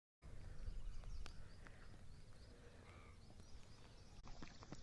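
Faint outdoor ambience: an uneven low rumble with a few faint bird chirps and scattered small clicks.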